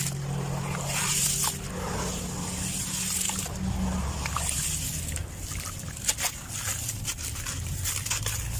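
Clumps of dirt being crumbled, a steady grainy rustling with a run of sharp crackles a little past the middle.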